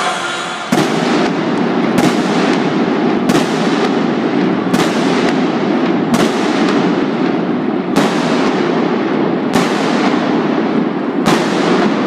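Aerial fireworks bursting: eight sharp bangs at roughly one-and-a-half-second intervals, each trailing off in a long echo, over a steady background din.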